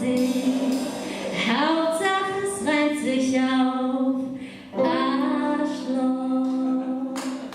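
A female voice singing the closing phrases of a song, holding long sustained notes with a short breath gap partway through.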